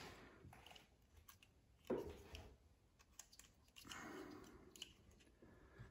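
Near silence with faint clicks and rustles of handling as test leads and crocodile clips are gripped and clipped onto cable ends, with a soft knock about two seconds in.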